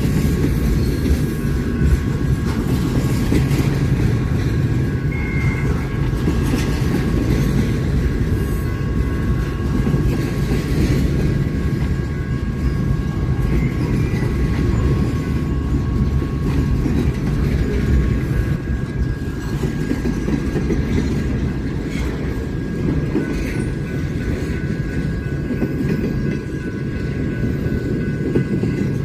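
Railroad cars rolling past at track side: a steady heavy rumble with the clack of wheels over the rails and a faint steady high whine above it.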